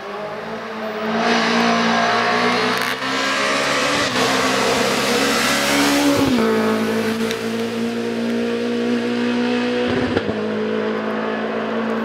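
Rally car engine at full throttle, its pitch climbing as it approaches, then dropping sharply as the car passes close about six seconds in. The engine note carries on as the car pulls away, with a brief break near ten seconds in.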